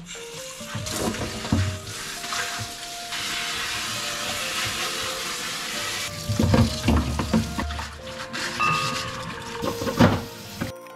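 Kitchen tap running into a stainless steel sink during hand dishwashing, a steady hiss for the first half. Then dishes and utensils knock and clatter in the sink several times, loudest about six and a half seconds and ten seconds in.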